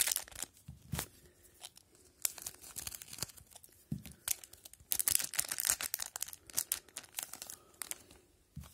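Foil wrapper of an Upper Deck MVP hockey card pack crackling and tearing as the pack is ripped open, in several bursts of crinkling, with a soft knock about four seconds in.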